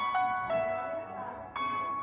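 Background music: a simple melody of clear, ringing notes, three new notes within two seconds.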